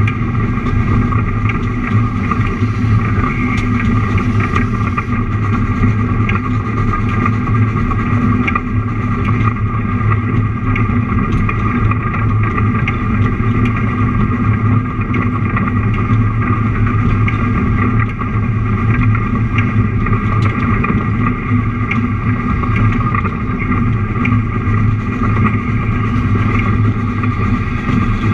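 Narrow-gauge (1,067 mm) train running steadily along the track, a continuous mechanical drone with faint scattered clicks.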